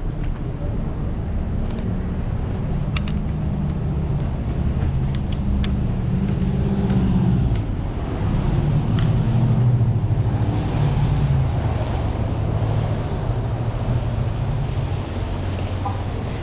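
Car engine and road noise: a steady low rumble that swells and eases, with a few short sharp clicks over the first half.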